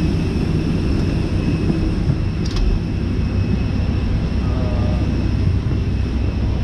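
Steady low rumble of an Airbus A320 airliner's cabin, with a faint high steady whine over it and a brief click about two and a half seconds in.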